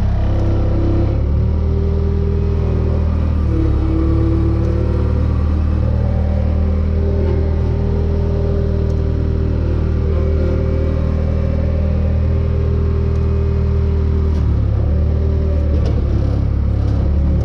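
Bobcat skid-steer loader's engine running steadily close by, its pitch shifting briefly a few seconds in and again near the end.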